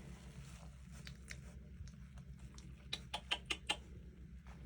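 A quick run of five or six light clicks or taps about three seconds in, over a steady low hum.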